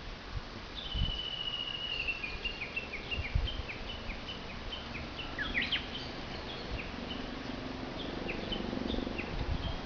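Small birds calling: a held high whistle about a second in, then a run of short, high, downward-slurred chirps repeating about twice a second. From about halfway through, a faint low drone of a distant helicopter builds underneath.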